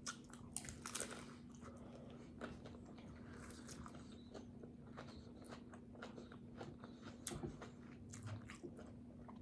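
Someone chewing a mouthful of taco, with faint short clicks and crunches scattered throughout.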